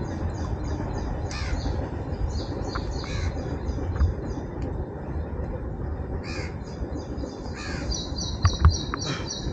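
Birds calling: runs of short high chirps, broken four times by a harsh call that drops in pitch, over a steady low rumble. Two sharp knocks come near the end.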